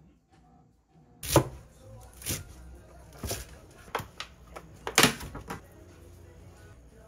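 Kitchen handling noises: about five sharp knocks and clicks of utensils and containers, roughly a second apart, starting about a second in, over a low steady hum. A spoon adds minced garlic to sliced beef in a stainless steel mixing bowl.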